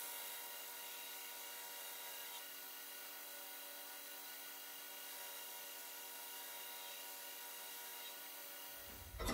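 KMG TX 2x72 belt grinder running with an abrasive belt grinding the flat bevel of a steel knife blade: a steady, even motor hum with a rasping hiss over it.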